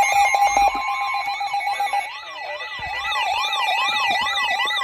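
Emergency alert tones: a steady electronic tone with a second tone above it that stops about a second in, overlaid by an electronic siren sweeping up and down about twice a second. The steady lower tone cuts out about two seconds in while the siren sweeps carry on.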